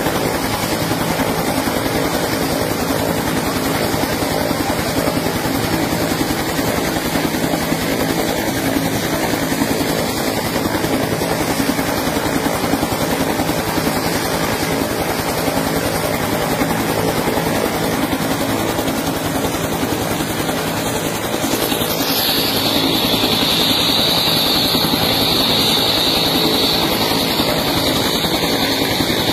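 Helicopter running close by: a loud, steady rotor chop with engine tones underneath. About three quarters of the way through, a higher whine comes in and it grows a little louder.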